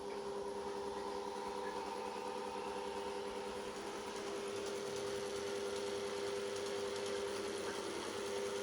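Gorenje PS 060 A washing machine running, with a steady motor hum.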